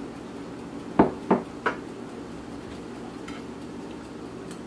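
A metal fork clinking against a ceramic dinner plate while twirling noodles: three quick clinks about a second in, then a couple of faint taps, over a low steady room hum.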